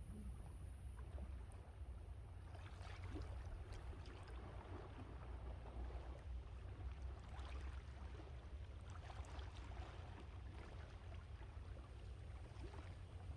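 Sea waves washing in and receding, a hissing wash swelling every few seconds, over a steady low wind rumble on the microphone.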